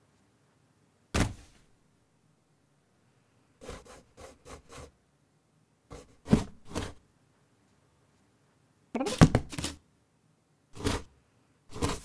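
Cartoon sound effects of a cat moving around inside a cardboard box: a thump about a second in, then several short bursts of scrabbling and scraping against the cardboard, the loudest group about three-quarters of the way through.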